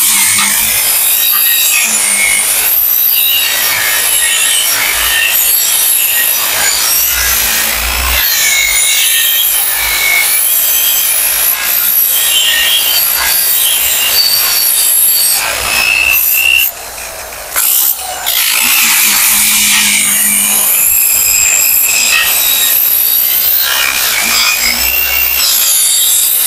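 Angle grinder with a thin cloth buffing wheel polishing a welded metal staircase joint, running loud and steady with a rough rubbing hiss and a high motor whine. It eases off briefly about 17 seconds in, then resumes.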